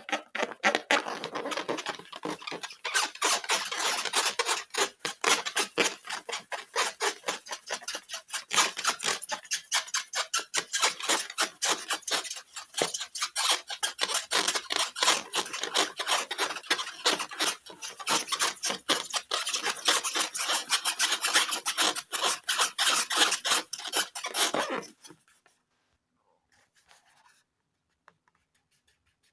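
Rapid, repeated rubbing strokes, several a second, that stop suddenly near the end.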